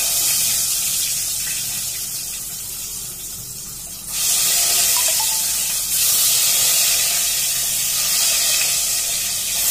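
Hot oil sizzling as peeled boiled eggs are dropped into it to fry, the sizzle growing louder about four and six seconds in as more eggs go in.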